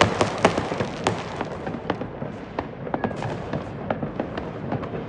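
New Year's Eve fireworks and firecrackers: a dense, continuous crackle of many overlapping bangs and pops, heaviest in the first second or so and thinning out after.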